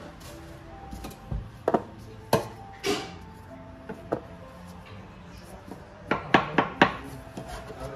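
Short, sharp knocks of food preparation on plastic chopping boards: a few single knocks in the first half, then a quick run of about five knocks near the end.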